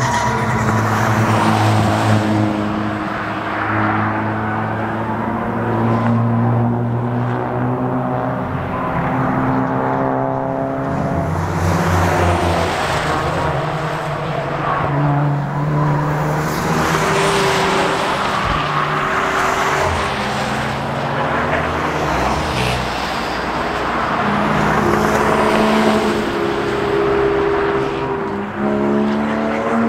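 Track-day cars' engines and exhausts driving through a circuit corner one after another, overlapping as they go. Their engine notes repeatedly climb and drop in pitch as the cars lift off and accelerate.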